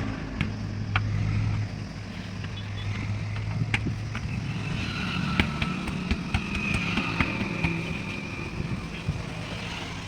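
A motor vehicle engine running with a steady low hum that drops away after about two seconds, and scattered sharp clicks and knocks from the tyre work throughout.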